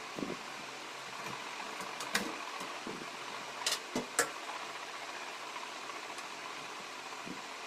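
Steady background noise, with a few light clicks and taps about halfway through.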